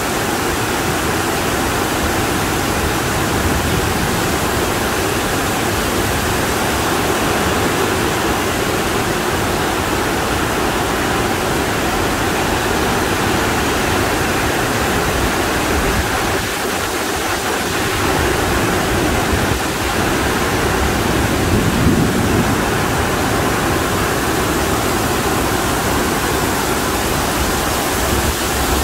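Extremely heavy monsoon rain pouring down: a dense, steady hiss of rainfall that does not let up.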